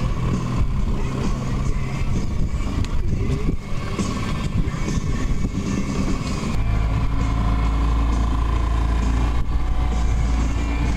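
A fishing boat's motor running steadily; about six and a half seconds in its sound changes to a stronger, even low hum.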